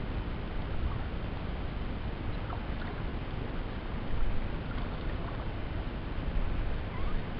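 Steady low rushing of wind and water around a small oared pontoon boat on open water, with a few faint short chirps.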